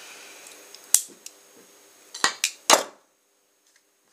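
Corded rotary tool running faintly with a steady hum as it works on a plastic camera mount, broken by four sharp clicks and clacks of the tools against the camera, about a second in and then three close together a little past two seconds. The tool's hum stops abruptly near three seconds.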